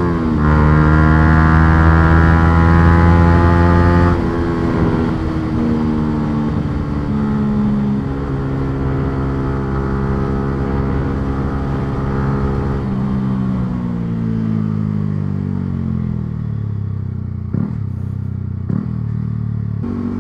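Yamaha R125's single-cylinder 125 cc four-stroke engine, heard onboard while riding. The revs dip briefly, then the engine runs high and steady for about four seconds. The throttle then closes and the revs fall slowly for about twelve seconds, with two short knocks near the end before the engine note steps back up.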